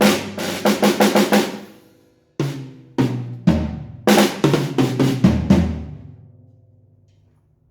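Tama drum kit with Istanbul cymbals being played: a quick fill, a short break, then a run of hard hits about every half second on drums and cymbals. The last hit rings out and fades away by about two-thirds of the way through.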